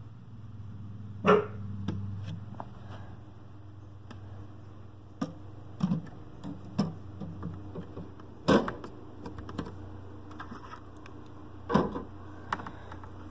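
A dog barking in short, sharp barks. The three loudest come about a second in, past the middle and near the end, with softer knocks between, over a low steady hum.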